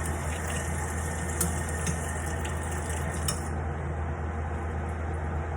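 Water running with a hiss that stops about three and a half seconds in, with a few light clicks, over a steady low hum.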